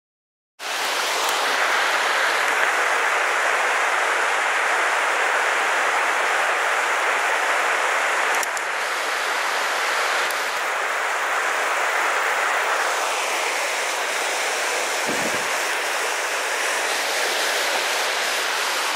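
Water rushing steadily as it cascades over rocks in a small waterfall and rocky river, starting about half a second in.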